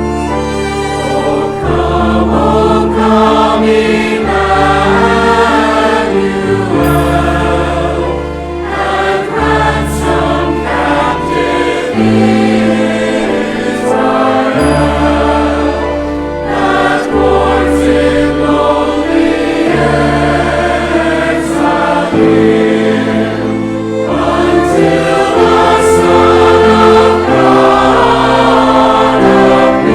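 Choir singing a medley of familiar Christmas carols with orchestral accompaniment, sustained chords over steady bass notes.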